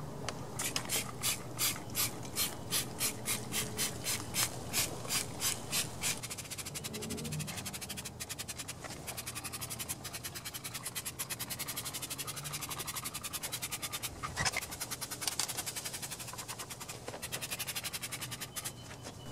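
Trigger spray bottle of foaming degreaser being pumped over and over, a short spritz about three times a second, then quicker, denser spraying.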